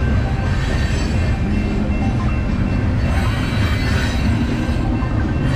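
Freight train of covered hopper cars rolling past a level crossing: a steady heavy rumble of wheels on the rails, with thin high squealing tones from the wheels over it.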